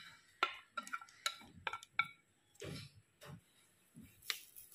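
Wooden chopsticks clinking and scraping against a plate and bowl as shredded green papaya is pushed from the plate into the bowl: about five light clinks, some with a short ring, in the first two seconds, then softer rustling of the papaya strands and one more tap near the end.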